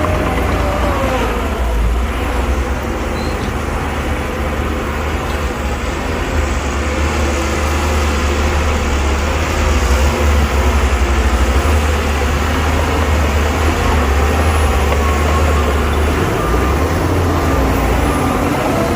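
Heavy diesel construction machinery running steadily: a deep engine rumble with a wavering whine above it, slightly louder around ten to twelve seconds in.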